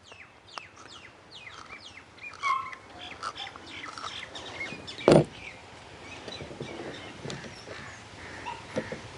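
Birds chirping, a run of quick calls that slide down in pitch, thickest in the first three seconds and sparser after. A single sharp knock about five seconds in is the loudest sound.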